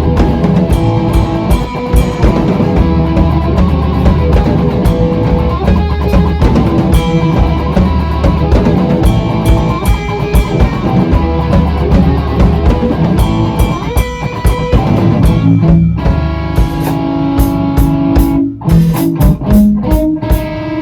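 Rock band playing an instrumental passage on electric guitar, bass and drum kit. About three quarters of the way through, the heavy low end drops away and held guitar notes ring out over a lighter beat.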